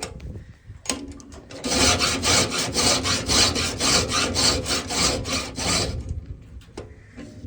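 A hand file scraping metal saw teeth during sharpening: a run of quick, even strokes, about five a second, lasting about four seconds, with a few slower scrapes before and after it.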